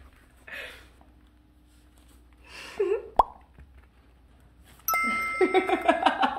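An edited-in cartoon 'plop' sound effect, a quick rising pitch ending in a click, about three seconds in. A loud comic audio sting follows from about five seconds, with held chime-like tones under a bending, voice-like melody.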